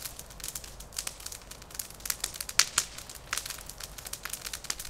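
Wood campfire crackling: irregular sharp snaps and pops, the loudest a little past the middle.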